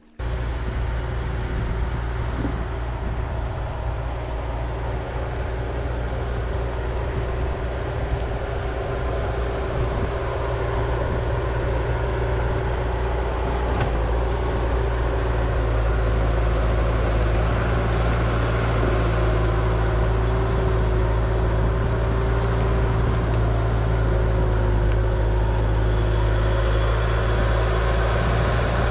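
2005 Bobcat T300 compact track loader's diesel engine running steadily, with a thin steady whine above it. It gets a little louder about halfway through, and a few short high squeaks come over it.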